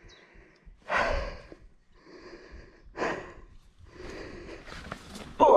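A fallen mountain biker breathing hard, winded after a crash: heavy breaths about two seconds apart, with a louder sound starting just before the end.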